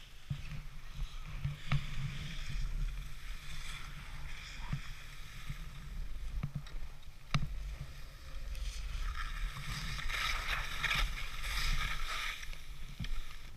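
Skis sliding and swishing over snow, with wind rumbling on the camera's microphone and a couple of sharp clicks. From about 9 s to 12.5 s the skis scrape more harshly on hard-packed, scraped snow.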